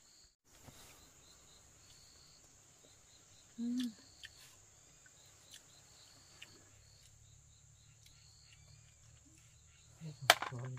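Crickets and other insects trilling steadily, with short repeated chirps over a high continuous drone. A brief low sound comes about a third of the way in, and a single sharp click, the loudest sound, comes near the end.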